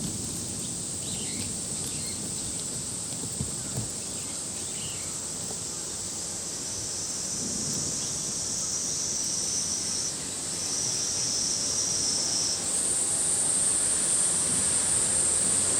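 Steady high-pitched insect chorus. A second, lower insect song joins about halfway through, breaks off briefly, then stops near the end, while the high chorus rises a little in pitch.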